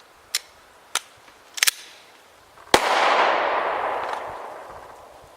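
A single 9mm shot from a Glock 17 pistol, a sharp crack whose echo rolls off over about two seconds. A few light clicks and knocks come before it.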